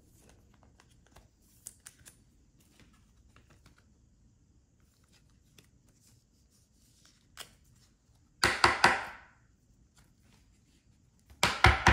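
A trading card being handled and slid into a plastic penny sleeve and top loader. Faint clicks and light handling, then two short, loud plastic scraping rustles, one about two-thirds through and one at the end.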